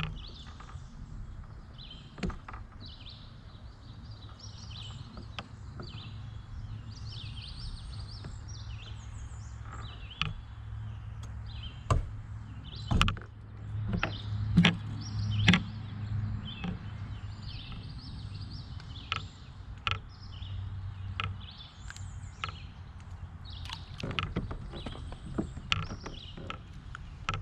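Scattered knocks and clicks of fishing gear being handled in a kayak, loudest in a cluster about halfway through, over a steady low hum, with birds chirping in the background.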